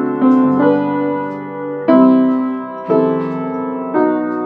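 Upright piano played slowly: a series of sustained chords, a new one struck about once a second and each left to ring and fade.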